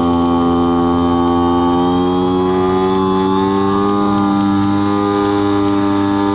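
Skywalker X-8 flying wing's electric motor and pusher propeller, heard from the onboard camera: a steady, loud whining hum whose pitch rises slightly a couple of seconds in as the throttle is eased up.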